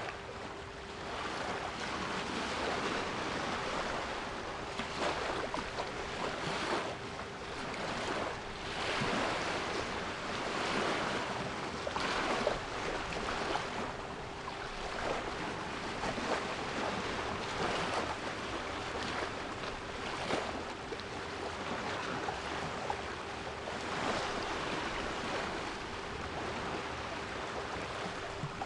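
Sea waves washing on a shore, rising and falling in swells every second or two, with a steady 396 Hz pure tone held beneath them.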